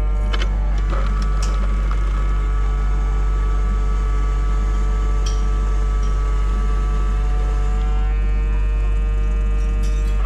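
Honda Transalp 750 motorcycle engine running at a steady speed while riding, with a heavy, even wind rumble on the microphone.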